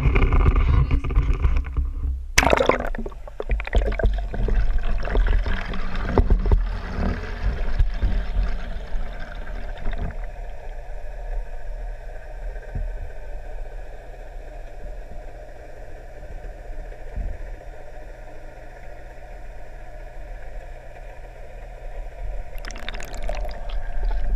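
An action camera plunges into a swimming pool with a splash about two seconds in, then records muffled underwater sound: gurgling water fading to a steady low hum, which swells again near the end.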